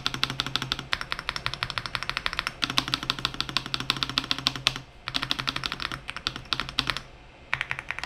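Rapid keystroke clatter on budget 75% mechanical keyboards, the Aula F75 and the VGN N75, typed on in turns for a sound comparison. The keys click quickly at about ten a second in runs, with short breaks near 5 s and again near 7 s.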